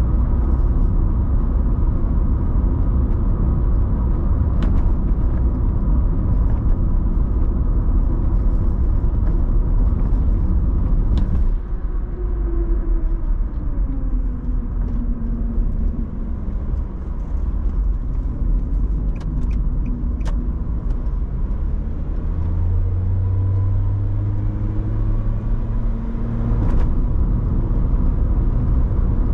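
Car driving along a road: a steady low rumble of tyres and engine. About a third of the way in it eases off and the engine note falls as the car slows; near the end the engine note climbs again and the road rumble picks back up.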